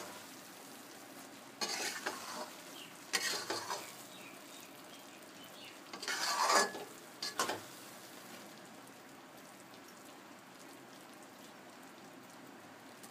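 Steel spatula stirring and scraping through sticky cooked sweet rice in an aluminium pot: four short scrapes in the first eight seconds, the loudest about six seconds in, then only a faint steady background.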